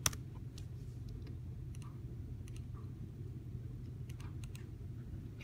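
Computer mouse clicking: one sharp click at the start, then a few faint scattered clicks, over a steady low hum.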